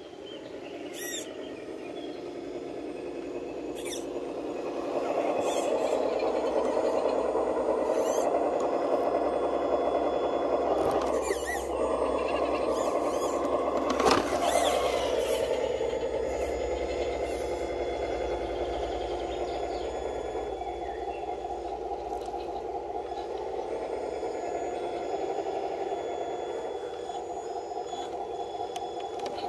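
Electric motors and gearboxes of Traxxas TRX-4 scale RC crawler trucks whining steadily as they crawl over tree roots, growing louder over the first few seconds. Scattered clicks and one sharp knock about halfway through.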